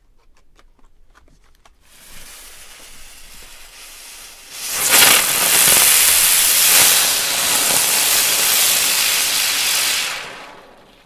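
Pyrogiochi Slimer category 1 firework ground spinner burning: a few faint clicks, a quieter hiss from about two seconds in, then a loud, steady rushing hiss from about five seconds in as it spins and throws sparks, dying away near the end.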